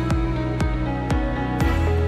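Background music: a gentle instrumental track with held notes and a steady beat of about two strokes a second.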